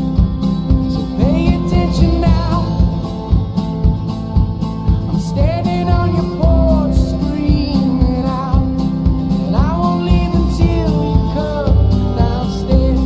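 Country-style song with guitar and a steady beat, its melody coming in phrases that slide up in pitch about every four seconds.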